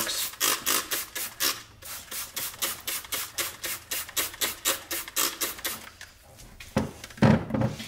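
Trigger spray bottle of glass cleaner squeezed over and over in quick succession, about four short hissing squirts a second. The spray is neutralizing the ferric chloride etchant on a freshly etched Damascus steel blade.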